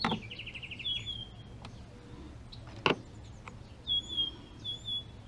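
Small birds chirping, with a short rapid trill near the start and several brief whistled calls later. A few sharp clicks are mixed in, the loudest about three seconds in.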